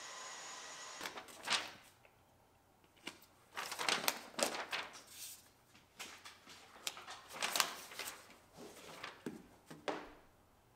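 A cordless stick vacuum runs steadily and cuts off about a second in. Then come intermittent rustling, scraping and tapping in several short clusters as carpet tiles are handled and laid on a hard floor.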